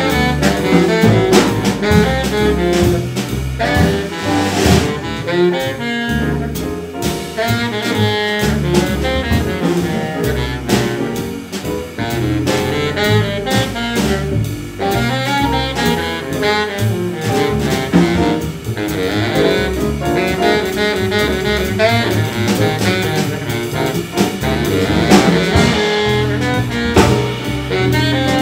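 Live small-group jazz: a baritone saxophone plays the lead line over walking upright bass and a drum kit.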